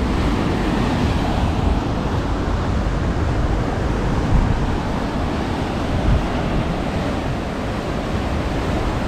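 Sea surf: waves breaking and washing in as a steady rushing noise, with wind buffeting the microphone.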